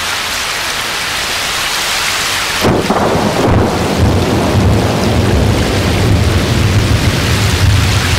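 Hydrophone recording of an underwater earthquake, as best as the researchers can tell: a steady hiss, then about two and a half seconds in a sudden onset of a deep rumble that goes on. It sounds like a thunderstorm.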